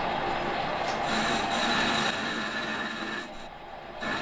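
Metal lathe turning down the outside of a small engine cylinder: the spindle runs with a steady whine while the tool cuts with a scraping hiss. The sound drops briefly near the end, then resumes.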